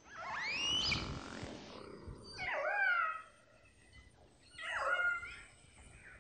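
Whale calls: three separate calls about two seconds apart, each a pitched, swooping sweep with overtones, the first the longest and highest.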